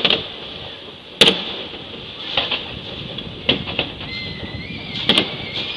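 Fireworks exploding: sharp bangs roughly once a second, two in quick succession near the end, with a thin whistle rising in from about four seconds in.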